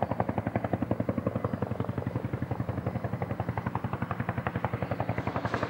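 Helicopter rotor chop, a rapid, even beat of about ten thumps a second over a steady low hum, from a CH-47 Chinook's tandem rotors.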